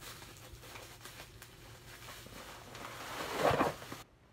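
Plastic bubble-wrap packaging rustling and crinkling as it is unwrapped by hand, loudest about three and a half seconds in, then cutting off suddenly near the end.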